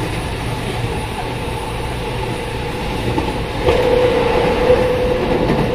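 Electric commuter train running, heard from inside the carriage: a steady rumble with a held tone that gets louder about three and a half seconds in.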